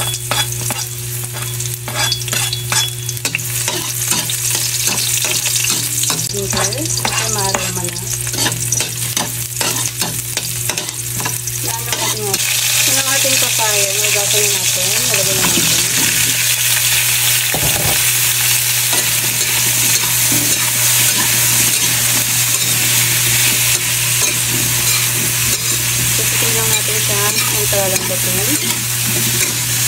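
Garlic and onion sizzling in hot oil in a steel wok, stirred with a metal utensil that scrapes and clicks against the pan. About twelve seconds in the sizzle becomes louder and hissier as a batch of cubed raw green papaya is tipped into the hot oil, with a steady low hum underneath.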